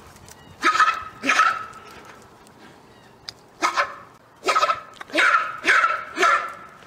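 Malayan tapir giving short squealing calls, seven in all: two about a second in, then five more in quick succession from about halfway.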